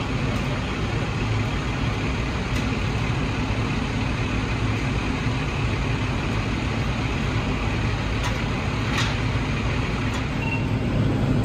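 Steady rumble of an idling heavy vehicle engine with a constant low hum, and a couple of faint clicks.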